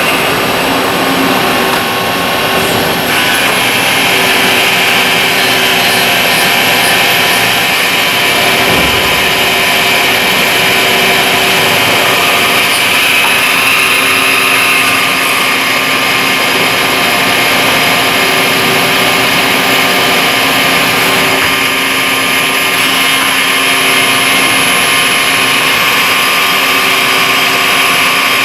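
Miyano ANX-42SYY CNC multi-axis lathe machining a metal part: a steady mechanical hiss and whine of spindles, cutting tools and coolant spray, with a few steady tones, growing slightly louder about three seconds in.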